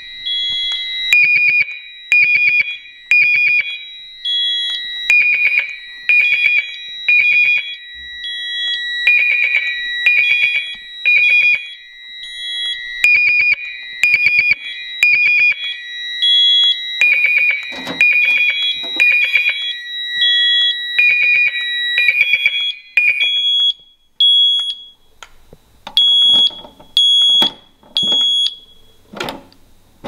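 Several fire alarm horns and horn/strobes sounding together in a system-wide alarm set off by a duct smoke detector: repeating high-pitched blasts about once a second over steady high tones. Among them is a horn set to a 2400 Hz temporal tone. The steady tones stop about two-thirds of the way through, leaving sparser beeps near the end.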